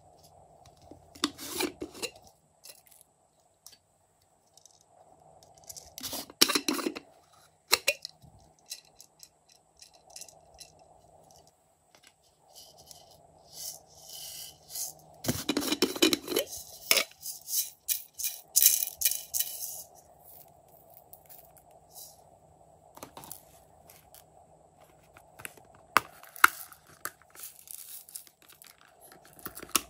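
Hard plastic containers handled by hand: scattered clicks and knocks, with short bursts of crackling and rustling, the longest and loudest about halfway through, over a faint steady hum.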